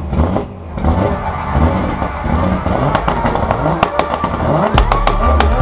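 A 2JZ-swapped Nissan Silvia drift car's engine runs with a pulsing, lumpy rumble and is blipped, the pitch rising in short revs. Sharp cracks come thick and fast in the second half.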